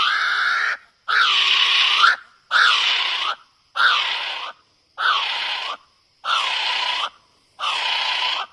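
A bird giving a loud, harsh, screeching call over and over, about seven calls each just under a second long with short gaps between them.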